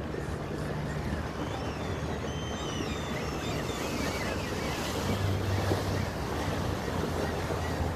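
A sailboat motoring under way: the steady low hum of its inboard engine under the rush of water along the hull and wind on the microphone. A few short high chirps come through about two to five seconds in.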